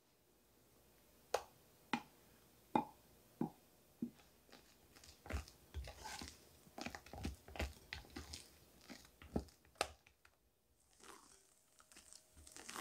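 Spatula working thick whipped cream around a glass bowl: a few sharp taps of the spatula on the glass in the first few seconds, then a run of wet squelching as the cream is folded, with one more tap near the end.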